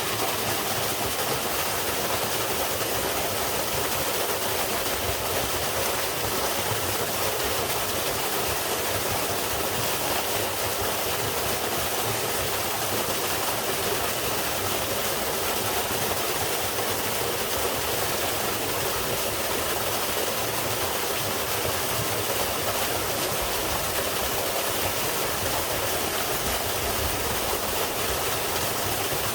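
A mountain-valley waterfall dropping straight down: a steady, unbroken rush of falling water, bright and hissing, with little deep rumble.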